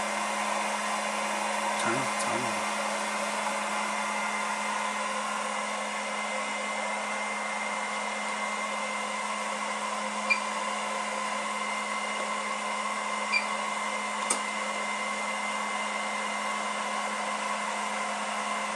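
Mobile BGA rework station running with its heater blower and cooling fan on, making a steady hair-dryer-like blowing with a constant low hum. A few short ticks come in the middle.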